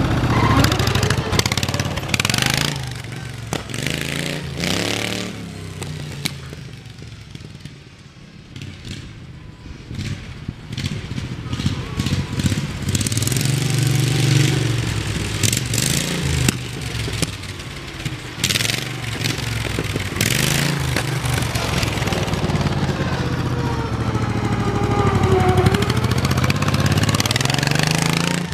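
Riding mower's V-twin Briggs & Stratton engine with straight pipes, running loud and revving up and down as the mower is driven around. It fades about a quarter of the way in and grows louder again toward the end.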